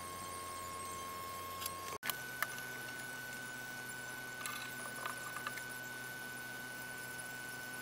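Faint steady room hum with a thin high whine, which drops out for an instant about two seconds in and comes back at a slightly higher pitch. A few faint soft clicks and scuffs come about halfway through.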